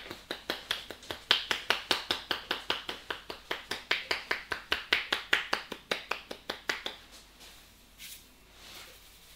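A barber's hands tapping rapidly on a head in percussive head massage: a fast, even run of sharp slaps, about six a second, stopping about seven seconds in, followed by faint rubbing.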